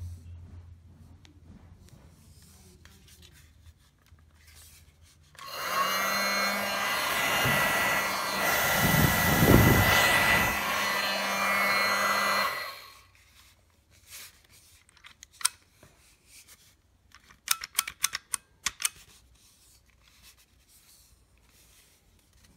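Bison Airlighter 420's electric air blower fan switched on for about seven seconds, running steadily and swelling briefly in the middle, then cut off. A few light clicks follow.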